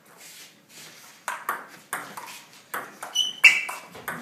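Table tennis rally: a ping-pong ball clicking back and forth between a Stiga Expert table and rubber-faced paddles, about seven sharp hits at an uneven pace. The loudest hit comes about three and a half seconds in.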